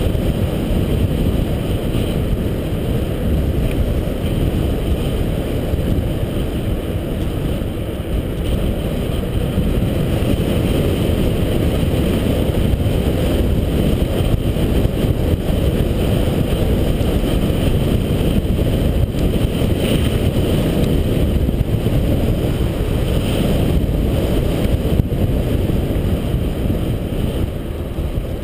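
Steady low rumble of wind on a GoPro HD's microphone, mixed with the tyre noise of a mountain bike rolling fast on tarmac; it eases slightly right at the end.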